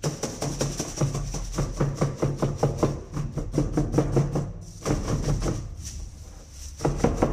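Quick, even hand taps on a plastic bag of freshly mixed plaster slurry, done to bring trapped air bubbles up to the surface. The tapping pauses briefly about four and a half seconds in and is softer for a second before picking up again.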